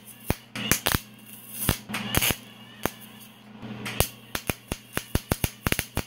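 MIG welding arc crackling and popping irregularly in short bursts with brief pauses, from a Miller MIG welder welding a steel square nut in place, over a low steady hum.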